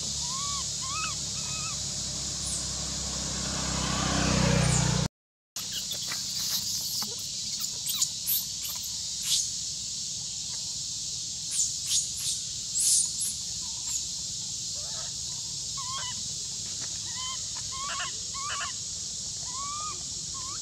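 Forest ambience: a steady high insect drone with short, repeated rising-and-falling chirping calls. A low rumble swells over the first few seconds and cuts off abruptly, followed by scattered sharp clicks and more chirps.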